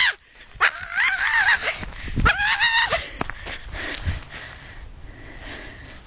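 Miniature schnauzer whining: two long, high, wavering cries in the first three seconds.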